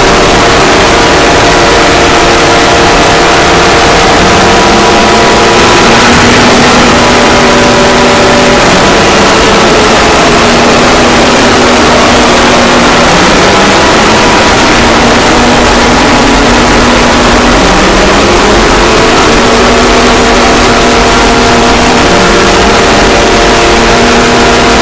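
Emergency Alert System-style alarm played extremely loud and distorted: a harsh wall of noise with steady tones on top that hold for a few seconds, then slide to new pitches, over and over.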